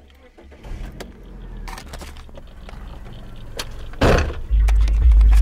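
Deep car-stereo subwoofer bass cuts out abruptly, leaving a few seconds of quieter cabin sound with small clicks and handling noise. About four seconds in there is a loud burst, and half a second later the heavy deep bass rumble comes back loud.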